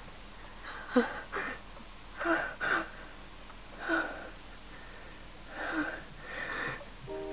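A person's voice making harsh, rasping breaths and gasps, about seven in a row roughly a second apart, some in quick pairs.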